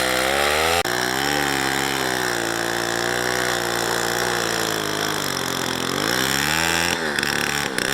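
Small chainsaw engine running, its pitch wavering up and down, with a sharp click about a second in and a dip and rise in pitch near the end.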